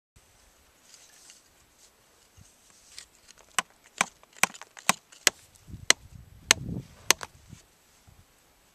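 A hand tool chipping at rock: about eight sharp clicking strikes roughly half a second apart, with a short low rumble about two-thirds of the way through.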